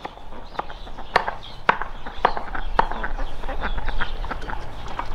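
Chopping strokes, about two a second, giving way to quicker, lighter taps in the second half.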